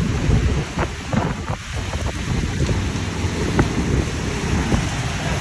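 Hurricane-force wind buffeting the phone's microphone in heavy rain: a steady low rumble of wind noise with rain hiss over it. A few sharp ticks sound about a second in and again past three seconds.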